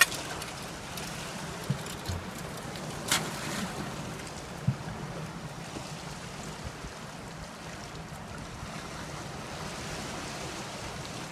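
Steady rush of sea swell washing against the rocks below, with some wind on the microphone; a sharp click about three seconds in.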